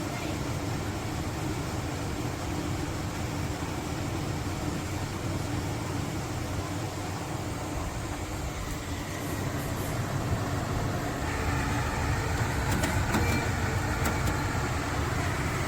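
Portable air conditioner running with a steady whoosh of air and a low hum, growing a little louder about ten seconds in.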